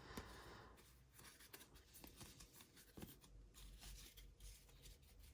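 Near silence with a few faint, light ticks and rustles of football trading cards being handled and slid off a stack.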